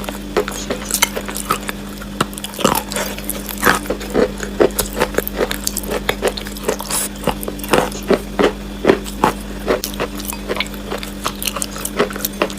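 Close-miked chewing of wet chalk: irregular crisp crunches, several a second, as the chalk is bitten and ground between the teeth.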